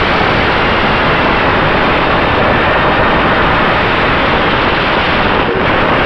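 FPV racing drone in flight, heard through its onboard camera: a loud, steady rush of wind and propeller noise, with a faint motor hum underneath.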